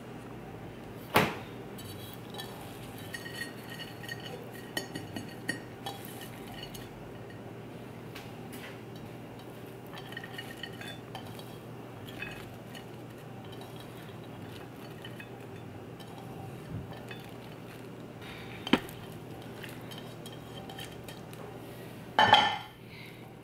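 Ceramic plates and a ceramic mixing bowl clinking and knocking together as chopped vegetables are scraped from a plate into the bowl. There are small clicks and a few sharp knocks: one about a second in, one later, and the loudest, a quick cluster of knocks, near the end. A faint steady low hum runs underneath.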